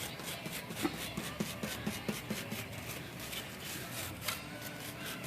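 Quick series of faint scratchy strokes and clicks, several a second, from a Smith Corona Super Sterling typewriter's dirty type segment and type bars being worked while it is soaked down with lacquer thinner to free sticky keys. The strokes thin out after about three seconds.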